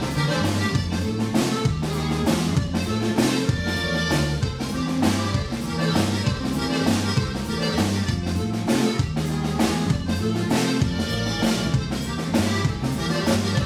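Live band playing, with accordion over electric bass, drum kit and congas, on a steady beat.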